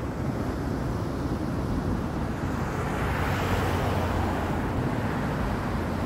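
Ocean surf on the shore: a steady rush of breaking waves, with one wave breaking louder about three seconds in, over a low rumble of wind on the microphone.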